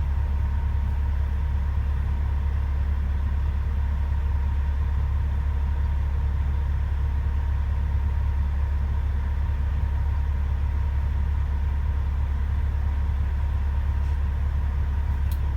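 Truck engine idling steadily at about 700 rpm, a constant low rumble.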